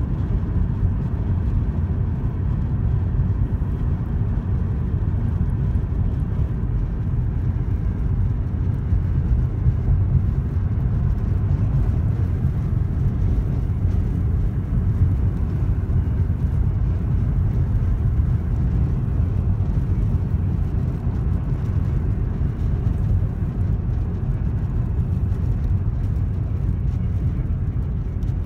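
Steady low rumble of a car driving along a road, tyre and engine noise heard from inside the car, unchanging throughout.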